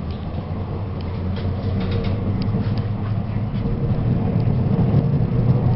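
Tatra T4D-M tram running, heard from inside the car: a steady low rumble with a faint motor hum and light rattles and clicks, growing gradually louder.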